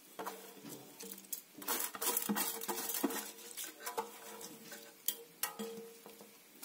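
Uncooked rice poured and shaken out of a metal bowl onto greens in a pressure cooker: a rustle of grains with rattles and a few sharp clinks of the bowl against the cooker rim in the second half.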